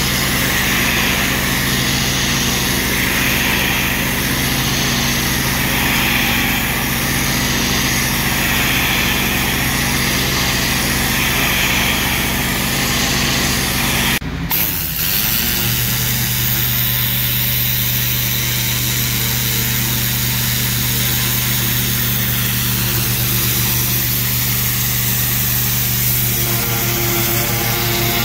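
Pressure washer running steadily, its engine droning under the constant hiss of the high-pressure water spray on brick. The sound breaks off for a moment about halfway through and then carries on the same.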